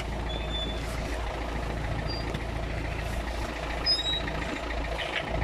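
David Brown 1490 tractor's four-cylinder diesel engine running steadily at idle.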